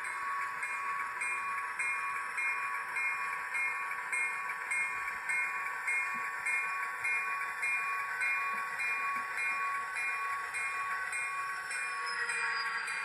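Sound-equipped HO scale model of an SDL39 diesel locomotive: the engine sound runs steadily under a bell ringing about twice a second, with a steady high tone.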